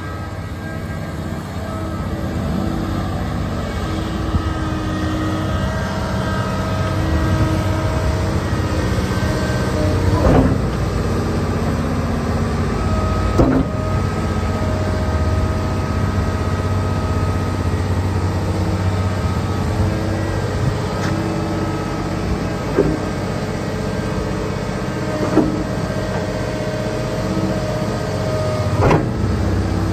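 Komatsu PC600LC-8 crawler excavator's diesel engine running steadily under hydraulic load, with a steady hydraulic pump whine over the engine hum as the upper structure slews and the boom and bucket move. About five sharp clanks come at intervals through it.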